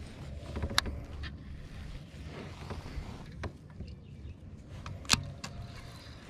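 Fishing tackle handled in a kayak: a handful of sharp clicks and knocks, the loudest about five seconds in, over a low steady rumble.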